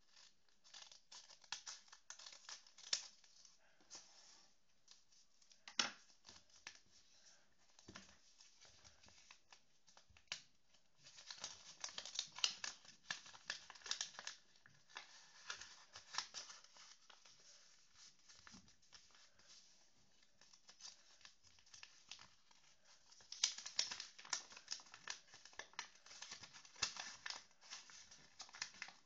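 Scissors cutting a sheet of paper, then the paper crinkling and rustling as hands fold and crease it. The handling comes in three busier spells with sharp little ticks among them.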